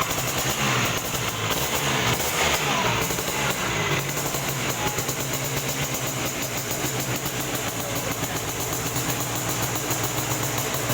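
Vespa racing scooter's two-stroke Polini 130 cast-iron engine running on a dyno, its revs rising and falling in the first few seconds and then held steady and high.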